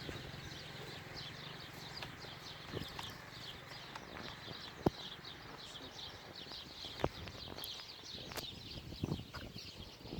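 Many small birds chirping continuously in quick, high twittering notes, with a couple of sharp clicks about five and seven seconds in.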